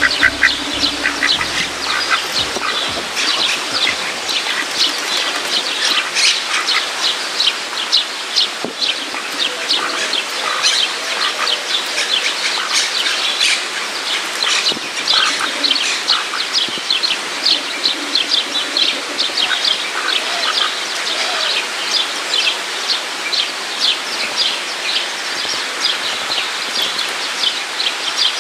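A dense chorus of small birds chirping, many quick high chirps overlapping without a break. Background music fades out over the first few seconds.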